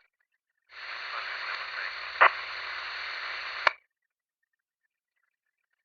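Police dispatch radio: a transmission keys up about a second in as about three seconds of radio static hiss. There is a sharp click midway, and it cuts off abruptly with a squelch click.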